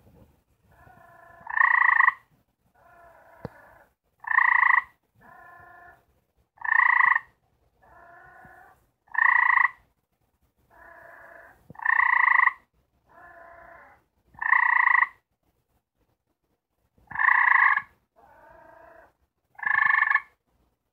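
Gray treefrogs giving their mating calls: short loud trills about every two and a half seconds, eight in all, alternating with fainter, lower trills in the gaps between them.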